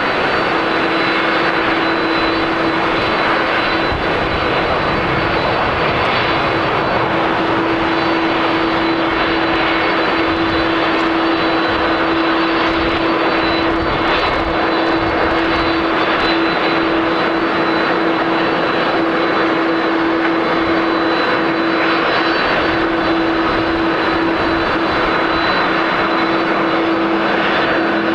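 Jet engines of an All Nippon Airways Boeing 787-8, Rolls-Royce Trent 1000 turbofans, on the landing rollout. They make a steady, even rush with a constant low hum running under it.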